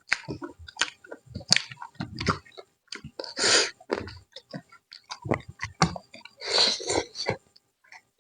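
Close-up chewing and mouth sounds of someone eating chicken with rice: a quick run of wet smacks and clicks, with two longer hissing sounds about three and a half and six and a half seconds in.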